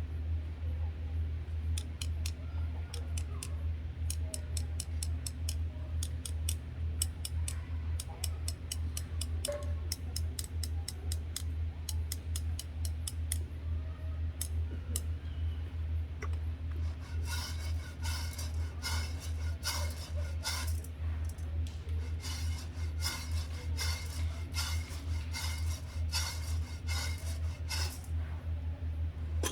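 Coffee beans roasting: many sharp clicks and crackles over a steady low hum, sparse at first and turning dense about halfway through.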